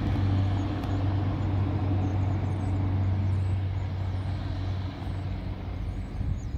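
State police helicopter flying low past, its rotor and turbine engines making a loud, steady low drone that eases off over the last couple of seconds as it flies away.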